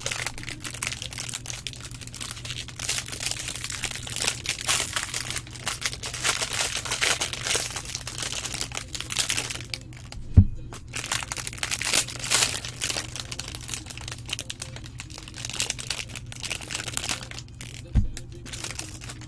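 Foil wrapper of a Bowman Draft baseball card pack crinkling and tearing as it is ripped open and crumpled, with a dull thump about ten seconds in and another near the end.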